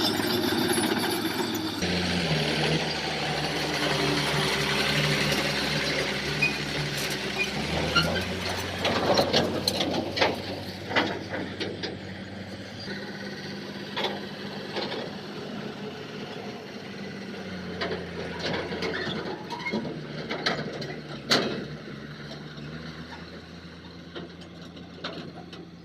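Heavy diesel construction machinery running, its engine note shifting a few times, with a run of metallic clanks, clicks and squeaks from moving steel parts.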